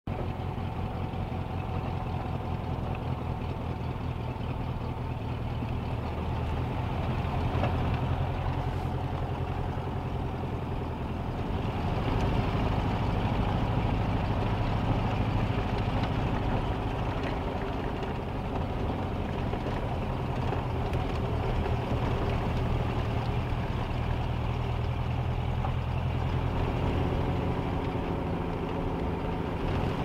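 Volkswagen Beetle's air-cooled flat-four engine running while the car drives, heard from inside the cabin: a steady, low pulsing engine note that gets a little louder for a few seconds twice, about eight seconds in and again from about twelve seconds in.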